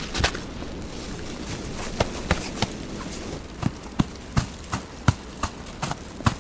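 A string of sharp, irregular ticks and taps over a steady hiss, coming every third of a second or so from about two seconds in.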